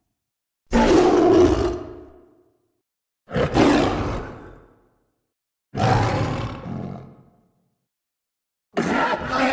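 Four separate cave troll roars from film sound effects, each starting suddenly, deep and full, and fading away over about a second and a half, with dead silence between them.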